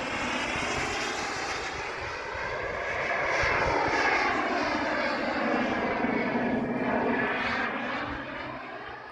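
KingTech turbine engine of an RC Rafale model jet flying past: a rushing jet whine that swells to its loudest midway, with a sweeping, phasing tone as it passes, then fades near the end.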